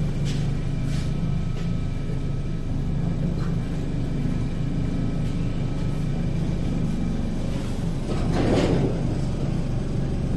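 ER2K electric multiple unit running as it pulls away, a steady low rumble with a low hum. About eight seconds in, a louder rush of noise lasts about a second.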